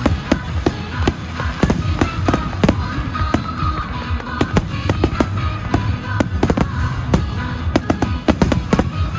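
Fireworks bursting in quick succession, a dense run of sharp bangs and crackles, with music playing underneath.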